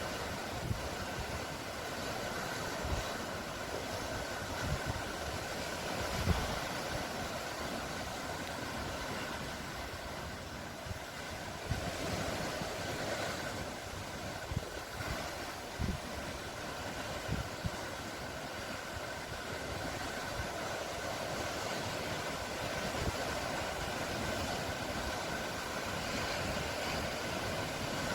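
Sea waves washing steadily in a continuous rushing noise that swells and eases, with occasional brief low thumps.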